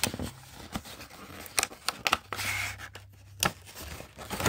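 Sticky tape being peeled off a cardboard card-game box, with scratchy rips and sharp clicks and taps as the box is handled; the longest rasping peel comes about halfway through.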